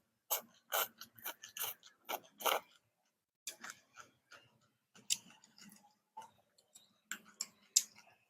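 A person eating bún riêu noodle soup: a series of short, irregular chewing and mouth noises, about two a second, with brief silent gaps between them.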